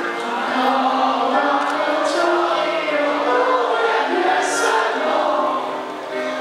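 A small group of teenage girls singing a gospel song together into microphones, with long held notes.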